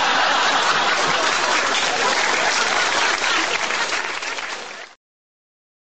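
Recorded audience applause, a stock applause effect after a joke's punchline: steady clapping that dies away near the end and cuts off about five seconds in.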